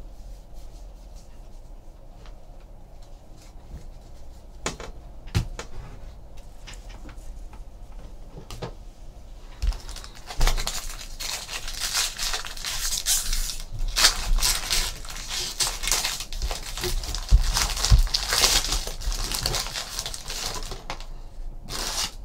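A few light clicks of cards being handled, then from about ten seconds in a long stretch of crinkling and tearing as trading-card pack wrappers are ripped open.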